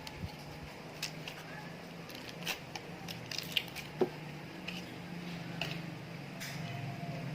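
Slime being mixed and squished by hand: scattered small sticky clicks and pops over a steady low hum.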